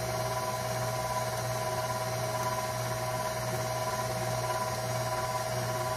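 Electric mixer running steadily at one speed, its whisk attachment creaming butter and sugar together.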